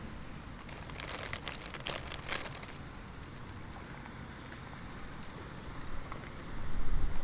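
Crisp lettuce leaves crackling and crinkling as they are handled and pressed onto a burger, a run of quick crackles about a second in that lasts a couple of seconds. Near the end, wind rumbles on the microphone.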